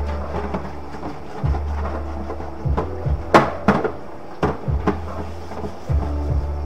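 A few sharp knocks and clacks of hard objects being handled, such as cupboard doors shutting or things set down on a counter, in a quick cluster about halfway through, over a steady low hum.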